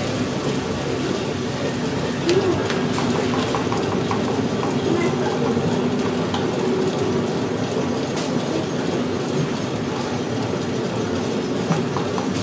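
Foot-powered potter's kick wheel spinning with a steady rumble, a few sharp clicks over it, as wet clay is thrown into a cylinder. Faint voices briefly about two seconds in.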